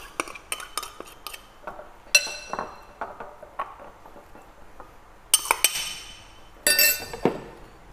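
Metal spoon clinking and scraping against ceramic bowls as seasoning paste is scraped out over pork belly: light taps early on, a single ringing clink about two seconds in, and two quick clusters of rattling clinks near the end.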